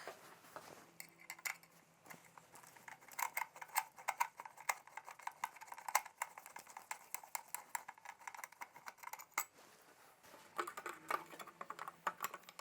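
Irregular light clicks and metallic clinks of hand tools and small metal parts as a motorcycle headlight's trim ring is worked loose, busiest through the middle few seconds.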